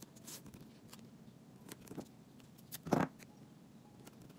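Hands handling paper and double-sided tape on a wooden table: a few light scrapes and taps, with a louder brief thump about three seconds in.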